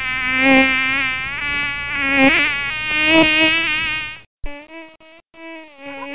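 Mosquito whining close by, its pitch wavering up and down as it circles. It cuts out about four seconds in, then comes back with a short break.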